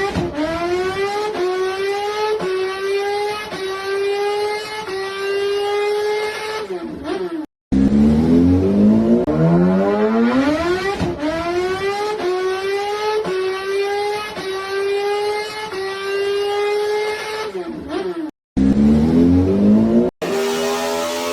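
Motorcycle-style engine accelerating hard. Its pitch climbs steeply, then rises in short steps like quick gear changes, about once a second. The run is heard three times, each broken off by an abrupt cut.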